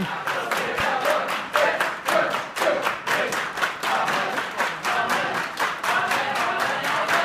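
A group of people clapping, several claps a second, with voices underneath.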